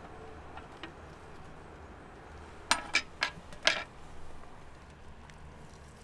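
Four sharp clinks of hard cookware being handled, close together about halfway through.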